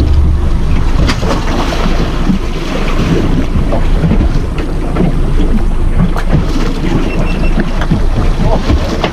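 Wind buffeting the microphone on an open fishing boat at sea, a loud, uneven rumble, with the sea moving around the hull.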